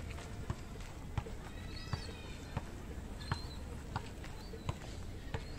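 Footsteps walking on a packed sand-and-gravel path, a step about every 0.7 seconds, over a steady background rumble.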